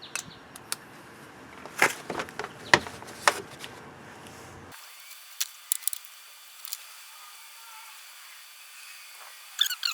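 Scattered sharp clicks and knocks of a 10 mm socket and hand tools being handled at the engine, coming in quick irregular groups. The background rumble cuts out abruptly nearly five seconds in, after which the clicks are sparser.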